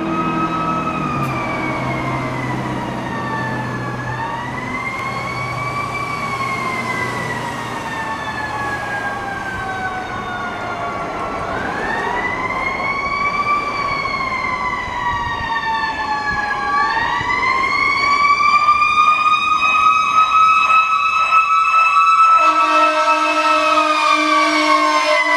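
Fire engine's Federal Q2B mechanical siren wailing, its pitch winding up and coasting down three times and getting louder as the truck approaches. Near the end a steady low air-horn blast joins the siren.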